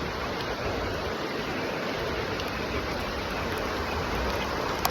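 Steady hiss of heavy tropical rain, with a short sharp click near the end.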